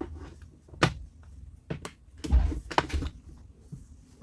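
Plastic parts of a cordless drill's housing being handled and fitted together on a wooden table: a series of sharp clicks and light knocks, the loudest a cluster with a dull thump about two and a half seconds in.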